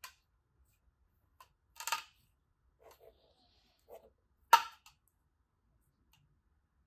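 Handling noises of the plastic-film cover on a venom-extraction beaker: a few scattered crackles and taps as a snake's head is pressed against it, with one sharp, loud click about four and a half seconds in.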